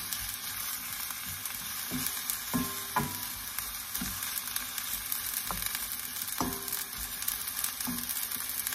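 Cubed pork sizzling as it browns in a non-stick wok, stirred with a wooden spatula that knocks and scrapes against the pan about once a second.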